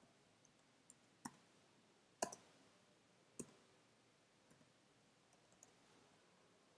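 Faint, scattered computer keyboard keystrokes: a handful of separate clicks over near silence, the loudest a little past two seconds in.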